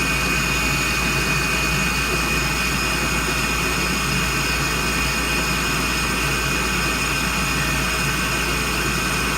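Ducane gas furnace's small draft inducer fan running with a steady whir, started by switching the breakers on at the start of the ignition sequence, before the burners light.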